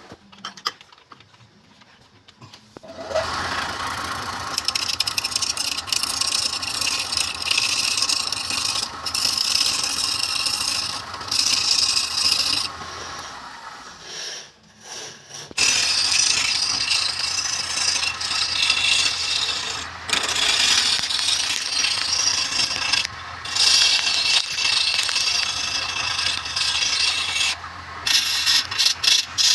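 Wood lathe running with a turning tool or abrasive scraping against the spinning wood, in long passes. The scraping starts about three seconds in and breaks off briefly about halfway through.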